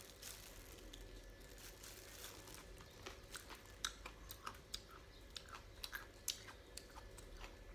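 A person chewing a mouthful of Burmese salad, faint, with scattered soft crunches and mouth clicks that grow more frequent about halfway through.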